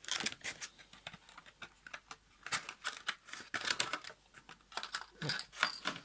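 Irregular clicks and rustles of paper and plastic being handled: the instruction sheets and plastic sprues of a miniatures model kit being sorted through.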